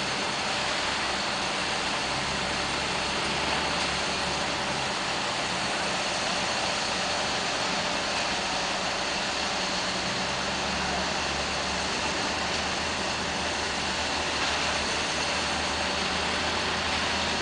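Engine of a heavy construction machine running steadily, a low, even engine note under a broad wash of mechanical noise.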